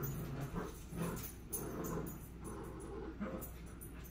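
A dog whimpering, in several short whines.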